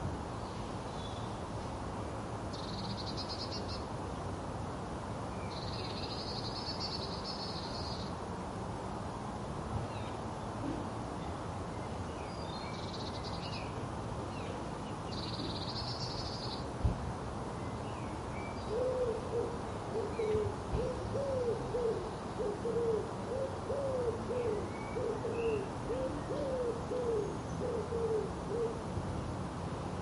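Garden ambience over a steady low rumble: short high bird trills in the first half, then, about two-thirds of the way in, a pigeon cooing, a run of low repeated hoots that goes on almost to the end.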